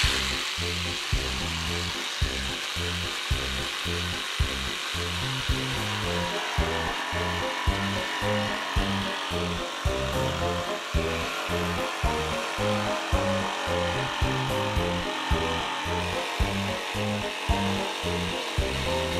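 Jigsaw running steadily as its blade cuts through a sheet of plywood, under background music with a steady beat of about two strokes a second.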